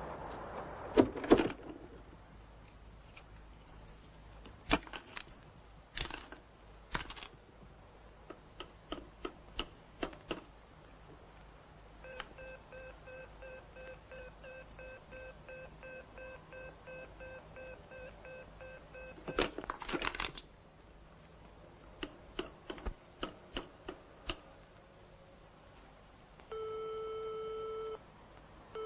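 Telephone sounds: a run of sharp clicks, a steady tone held for about seven seconds in the middle, another run of evenly spaced clicks, then a busy signal that starts beeping near the end.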